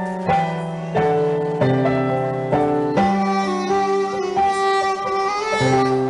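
Live piano and soprano saxophone duo playing a slow instrumental. Piano chords are struck every half second to a second, and a sustained saxophone melody enters about halfway through.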